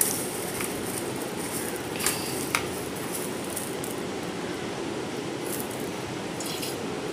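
Mustard seeds in hot oil in a kadhai, sizzling with a steady hiss, with a few sharp pops about two seconds in.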